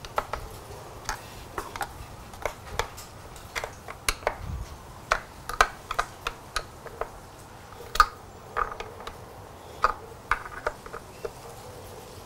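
Hand tool tightening the screws that hold the motorcycle airbox to the throttle body ports, making scattered light metallic clicks and ticks about one or two a second, with a sharper click about eight seconds in.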